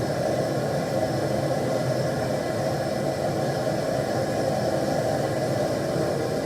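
Gas forge burner running with a steady, even rush of noise.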